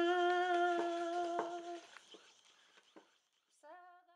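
A voice humming one long, steady note that fades away about two seconds in, then a short hummed phrase with a slight upward bend near the end.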